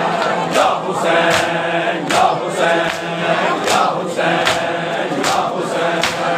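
A crowd of men chanting a noha in unison, with sharp rhythmic matam chest-beating strikes about every three-quarters of a second.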